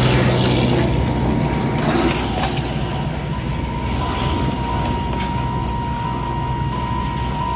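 Alishan Forest Railway Shay geared steam locomotive SL-25 running slowly past and away, a low steady rumble with hissing steam, under a steady high tone.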